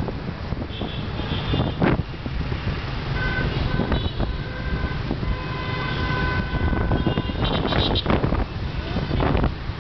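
Motorbike and car horns honking repeatedly in dense street traffic over a steady rumble of engines and road noise: short toots, then one longer honk in the middle and a cluster of beeps near the end.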